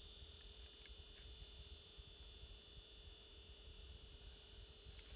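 Near silence: a faint, steady high-pitched whine over a low rumble, with a few faint ticks in the first second or so.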